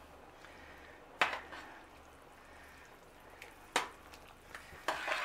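Metal spoon knocking a few times against a stainless steel pot, sharp separate clinks a second or two apart, over a faint steady low hum.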